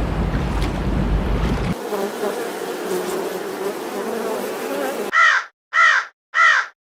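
A low, noisy rumble, then from about two seconds in a buzzing insect humming steadily. Near the end a bird gives three harsh caws, evenly spaced.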